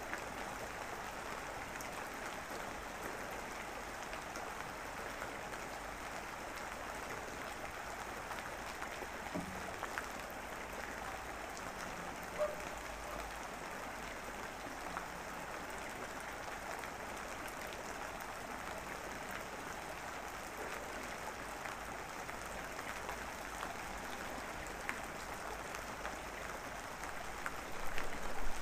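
Recorded rain falling steadily: an even hiss with faint scattered drop ticks.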